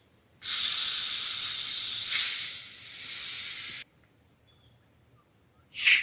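A fizzy drink being poured, hissing steadily for about three and a half seconds before cutting off sharply. A short, sharp hiss follows near the end.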